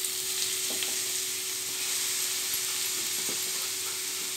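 Grated carrot sizzling in hot ghee in a non-stick kadai as it is tipped in: a steady frying hiss with a few faint small crackles.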